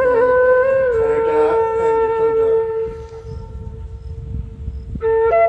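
Background music: a slow melody on a wind instrument with one long held note lasting about four seconds, and a new, higher phrase starting near the end.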